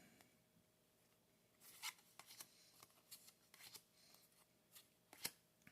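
Faint, scattered ticks and rustles of trading cards being handled and laid down, starting about a second and a half in.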